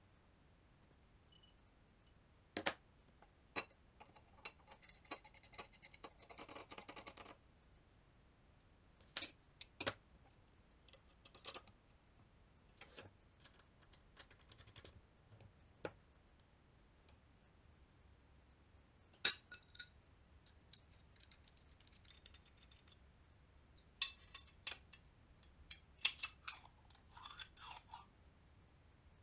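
Small metal jig parts being handled and fitted: scattered sharp clicks and knocks of aluminium brackets, an aluminium extrusion and steel threaded rods touching each other and a glass worktop, with short stretches of scraping and rattling.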